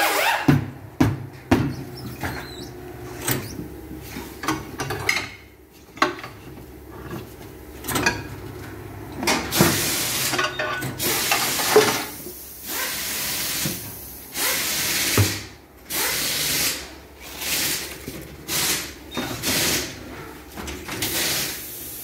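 Pneumatic tire-changing machine at work: sharp metal clanks and knocks of the tire lever and the rim on the machine, with repeated short bursts of hissing air, mostly in the second half.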